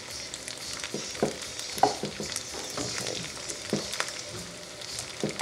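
Butter and vegetable oil sizzling steadily in a frying pan around a heap of cooked rice set to fry over a raised flame, with a few short knocks scattered through.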